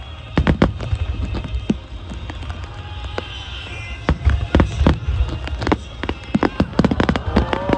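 Aerial fireworks bursting and crackling in quick, irregular succession over deep rumbling booms, with music playing underneath.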